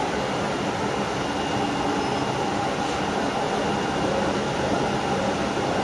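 CNC oscillating knife cutting machine running: a steady mechanical whir and hum with a few faint constant tones.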